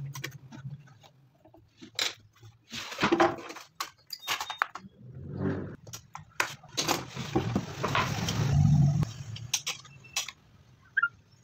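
Wooden boards and a metal combination square handled on a hard worktop: scattered clicks and knocks, with a couple of longer scraping, sliding sounds about three seconds in and again past the middle.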